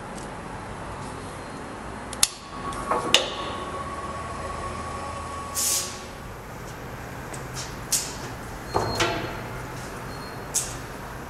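Vacuum bed of a screen-printing press switched on and running with a steady rushing hum, holding the make-ready sheet in place. Sharp knocks and clunks of the press's metal parts sound over it, the loudest about two and three seconds in and again around nine seconds, with a short hiss near the middle.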